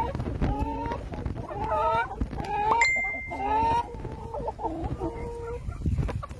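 Rhode Island Red chickens clucking and calling, a run of short repeated calls one after another.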